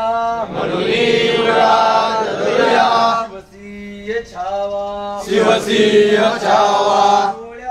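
A group of men chanting a Marathi devotional prayer in call and response. A single voice sings a line, then the whole group repeats it in unison; this happens twice.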